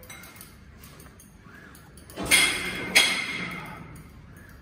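Weight stack of a Xebex cable machine clanking twice in quick succession as the plates knock together, each with a metallic ring that dies away.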